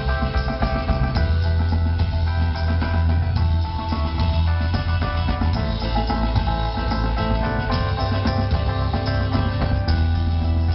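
Live band playing an instrumental passage with no singing: a drum kit and a heavy, steady bass line over guitar.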